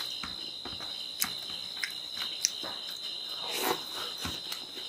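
Close-up eating sounds from a person eating pork and rice by hand: scattered wet clicks and smacks of chewing and of fingers working the rice and meat on a plate, with a longer noisy rustle about three and a half seconds in.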